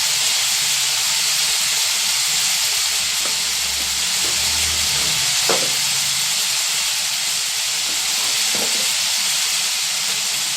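Food frying in a pan, a steady sizzle, with a light tap about five and a half seconds in.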